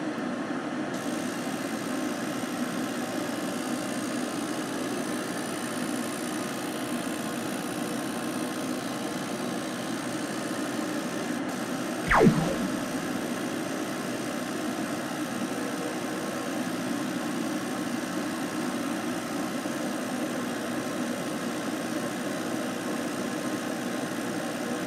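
Genmitsu diode laser engraver running as it engraves a design into a wooden panel: a steady, even mechanical hum. About halfway through, a brief louder sound sweeps quickly down in pitch.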